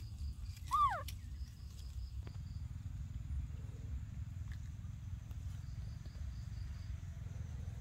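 A baby macaque gives one short coo about a second in, a quick rise then a falling glide. Behind it are a steady low rumble and faint insect chirping.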